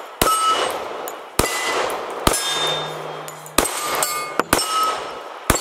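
Springfield XDS .45 ACP pistol fired six times, about one shot a second, each shot followed by the ring of a hit on AR-500 steel targets.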